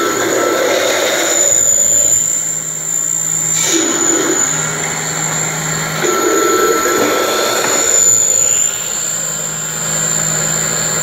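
Peanut butter colloid mill running while it grinds peanuts into paste: a steady high whine over a low hum, with mid-range grinding noise that comes and goes.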